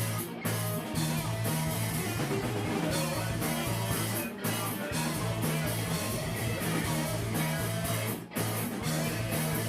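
Rock band playing live: electric guitar over a repeating bass riff, with the band cutting out for a split second three times, about half a second, four seconds and eight seconds in.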